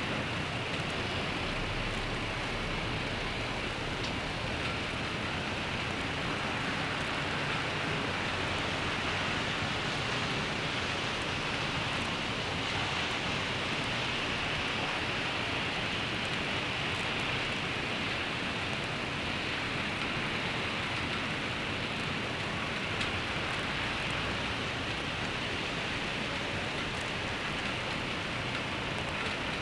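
Steady rainfall, an even hiss with no breaks.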